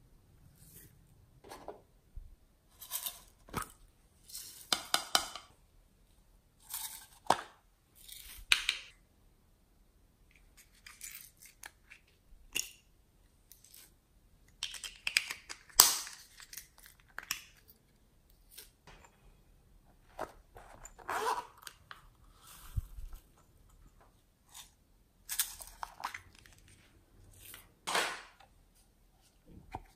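Glitter and sequins shaken and poured from small plastic and metal containers onto slime, heard as short scattered bursts of rattling with clicks from the containers being handled; the sharpest click comes about halfway through.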